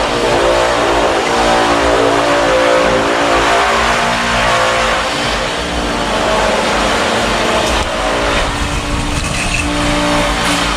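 Loud background music: a band track of sustained, changing chords with no singing.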